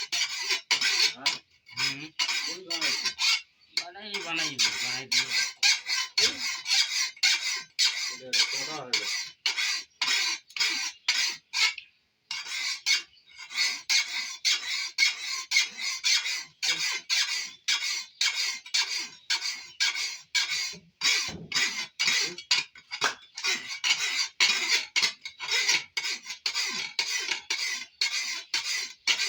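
A hand file rasping on steel in quick, even back-and-forth strokes, about two to three a second, the kind of filing used to sharpen or shape a forged blade. A chicken calls a few times in the first several seconds.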